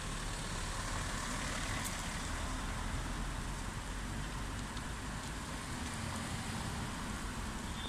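Cars driving past one after another: a steady hum of engines and tyres on the road.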